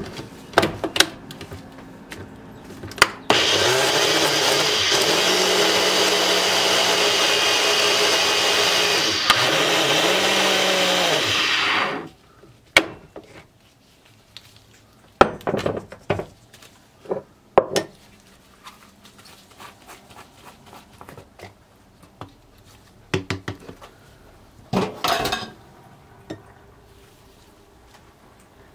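Ninja Professional blender motor running at full speed for about nine seconds as it blends a kale, pineapple and orange juice smoothie, sagging briefly in pitch near the end before cutting off. Clicks and knocks come before and after it as the cup is set on and taken off the base.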